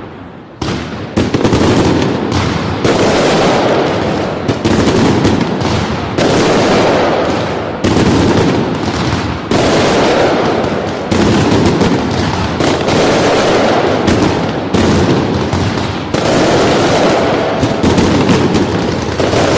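Fireworks barrage: a dense, continuous volley of rapid bangs and crackles, loud, swelling and easing in waves every second or two. It starts with a sharp bang about half a second in, after a brief lull.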